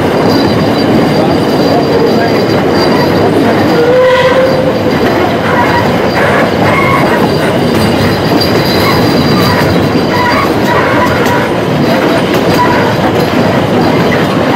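Puffing Billy's 2 ft 6 in narrow-gauge train running along the track, heard from aboard an open carriage: a steady rumble and rattle of wheels and carriages, with thin wheel squeals coming and going.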